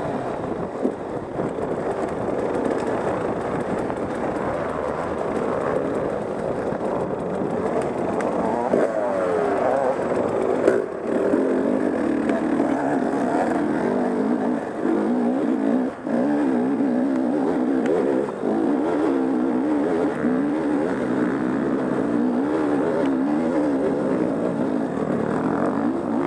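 Off-road dirt bike engine running hard on a trail, its pitch rising and falling with the throttle, with a couple of short drops in loudness about two-thirds of the way in.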